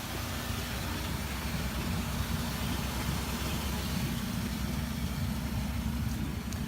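UAZ off-road vehicle's engine idling steadily, a low even rumble.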